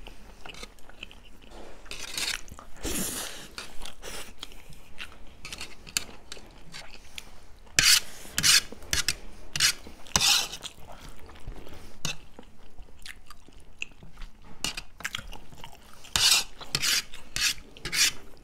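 Close mouth sounds of chowmein noodles being eaten: chewing and biting with many small clicks, broken by a few short, louder bursts about two, eight, ten and sixteen seconds in.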